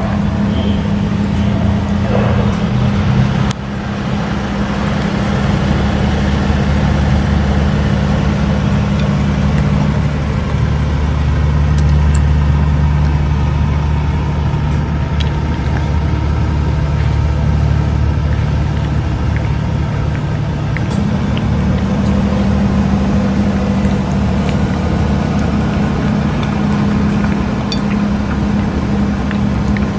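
Steady low engine hum, its tone shifting slightly about ten seconds in and again about twenty seconds in, with a few faint ticks over it.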